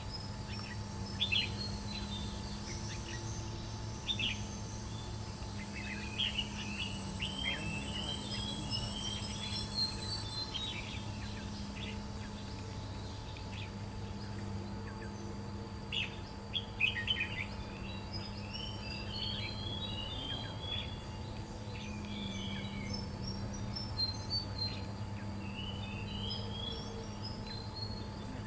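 Red-whiskered bulbuls singing: quick phrases of short chirped notes, in two spells with a pause about halfway, over a steady low hum.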